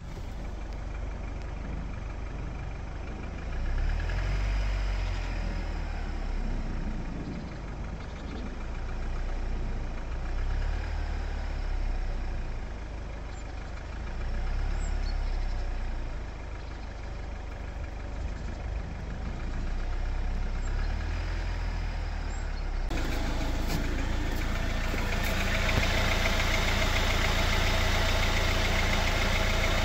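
Jeep Wrangler JL 2.0-litre turbo four-cylinder engine idling cold with a light tapping knock. The knock goes away once the engine is warm. The engine is heard more closely and louder from about three-quarters of the way through.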